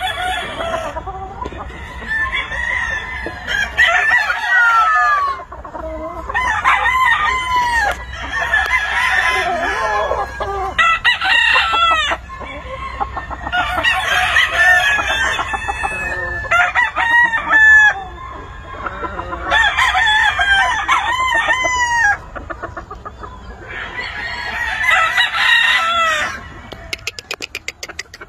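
Gamefowl roosters crowing again and again, several calls overlapping, with hens clucking among them. A quick run of clicks comes near the end.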